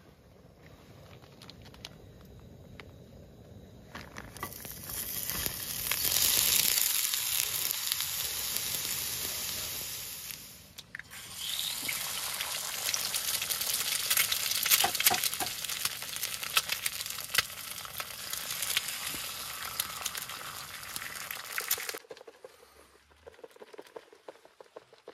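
Egg frying in a small skillet on a camp stove: a loud sizzle with crackling and spitting starts about four seconds in. It breaks off briefly near the middle and stops suddenly near the end.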